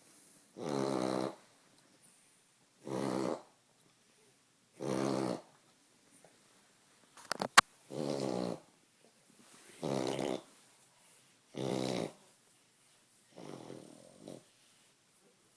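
French bulldog reverse sneezing: a series of about seven forceful snorting breaths drawn in through the nose, one every two seconds or so, the last one weaker. A single sharp click sounds about halfway through.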